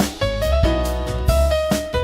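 Instrumental passage of a slow jazz cover with piano chords and melody over a steady bass line and light drum hits, with no vocals.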